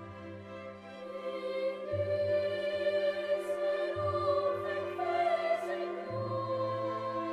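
Slow, sustained choral music with orchestral accompaniment; the bass note changes about every two seconds.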